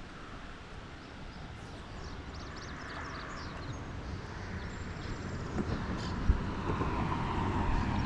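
A motor vehicle rumbling, growing steadily louder as it approaches.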